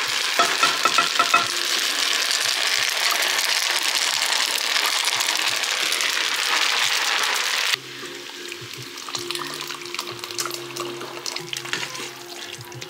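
Loud, steady sizzling of seared chicken pieces in a hot frying pan as they are tipped into a pot of fettuccine, stopping abruptly about two-thirds of the way through. After that come quieter clicks and scrapes of tongs stirring the pasta in a creamy alfredo sauce.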